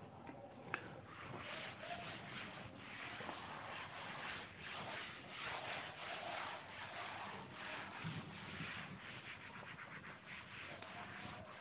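Cloth duster wiping chalk off a chalkboard: repeated, uneven rubbing strokes, faint, with one sharp tap about a second in.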